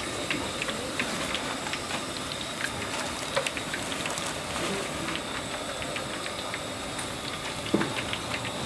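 Thai fish cakes (tod mun pla) deep-frying in a wok of hot oil: steady sizzling with scattered crackles and pops, one louder pop near the end.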